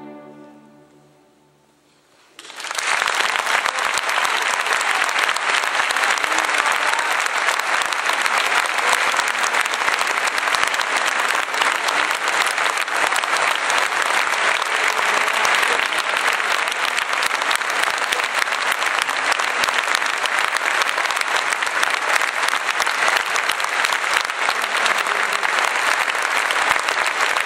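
The last chord of a string orchestra fades away, followed by a short hush. About two seconds in, audience applause starts suddenly and continues steadily.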